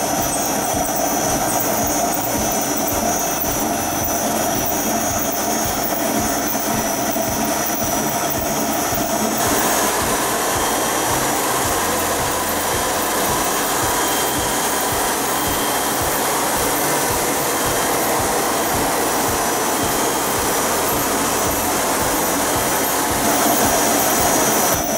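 ASL RT3 planetary concrete grinder with its 15 HP motor, running together with its attached 220V dust vacuum: a loud, steady machine drone with a steady high whine. About nine seconds in the noise becomes brighter and fuller.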